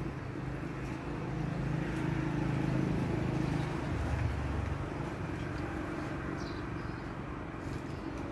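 Low, steady outdoor rumble that swells around the middle and then eases off.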